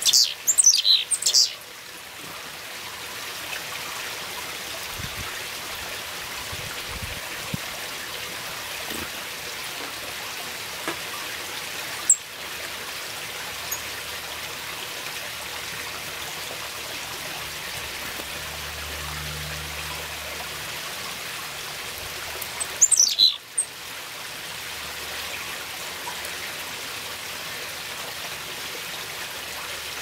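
Carolina chickadees calling: a quick run of high, thin notes at the start and another short run about 23 seconds in, over a steady rushing hiss. A single sharp click sounds near the 12-second mark.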